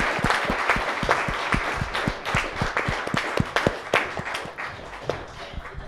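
Audience applauding, many hands clapping at once, dying down toward the end.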